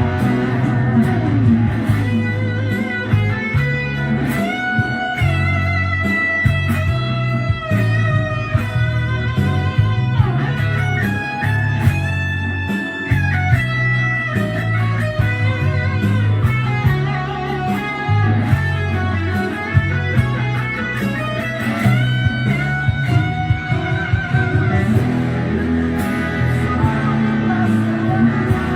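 Band music with an electric guitar playing a lead solo: a melody of held notes with bends and vibrato over a steady, repeating bass line.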